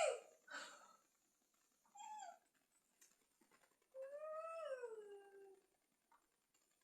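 Three separate high-pitched, wavering cries, like a pet whining or meowing. The last, starting about four seconds in, is the longest and rises, then falls.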